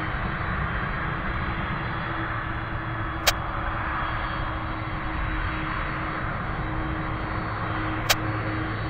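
Boeing 767-200ER's twin jet engines running steadily at low thrust as the airliner rolls slowly along the runway. Two sharp clicks sound, about three seconds in and again near the end.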